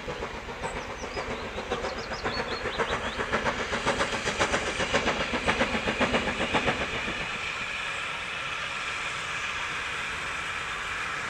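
Steam locomotive working with a rhythmic exhaust beat that grows louder and quicker, then stops about seven seconds in, leaving a steady hiss.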